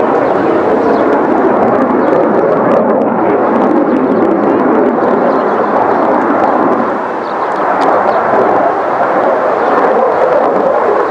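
Saab JAS 39 Gripen fighter jet flying overhead during an aerobatic display, its single turbofan engine making a loud, steady jet noise that dips briefly about seven seconds in and then builds again.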